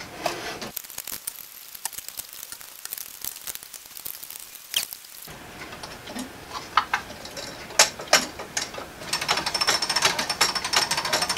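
Clicks and taps of 3D-printed plastic clock parts being handled and screwed together. From about nine seconds in, a rapid, continuous clicking as the clock's weight-driven gear train and anchor escapement start running.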